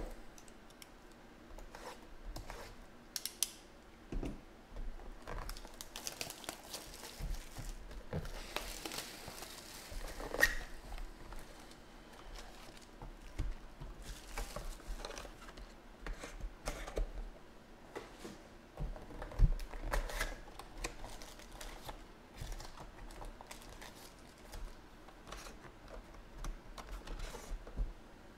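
Cardboard trading-card boxes and foil card packs being handled and opened by hand: irregular taps and knocks of cardboard on the table with rustling and crinkling of the foil packs, the loudest knocks about ten and nineteen seconds in.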